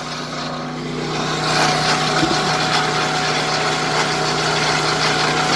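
Small single-cylinder overhead-valve gas engine of a hydraulic log splitter running steadily, growing louder about a second and a half in as the splitter works. A brief knock about two seconds in.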